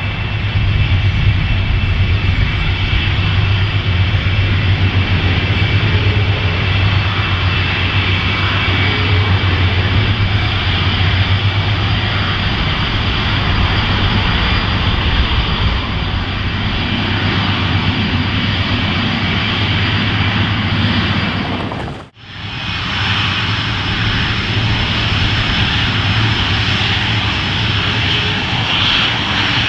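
Rolls-Royce RB211 turbofans of a Boeing 747-400 running at close range: a steady jet rumble with a high fan whine over it. The sound drops out abruptly for an instant about two-thirds of the way through, then resumes.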